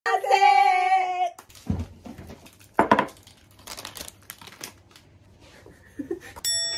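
A short held musical tone at the start, then the crinkle and tear of a plastic snack wrapper being pulled open by hand, with a single knock about three seconds in and a bell-like ding near the end.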